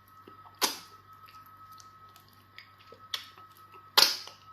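Eating sounds of amala fufu with okra soup: three short, sharp wet smacks, the loudest near the end.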